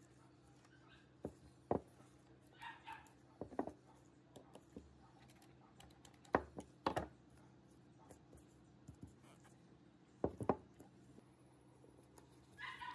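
Pairs of sharp clicks and knocks as the laminator's small electric motor is handled with pliers and a screwdriver, over a steady low hum. Two brief higher-pitched sounds come about three seconds in and near the end.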